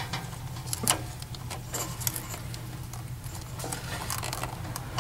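Hands handling a wire splice and electrical tape: scattered small clicks and rustles, over a steady low hum.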